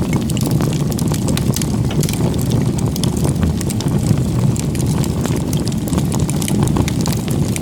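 Wood fire crackling with many sharp, irregular snaps over a steady low rumble.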